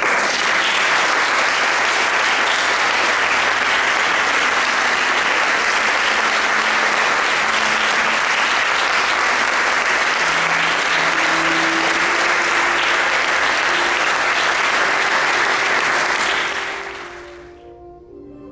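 Audience applauding steadily, the clapping fading out near the end. A few soft music notes come in under the applause in the second half.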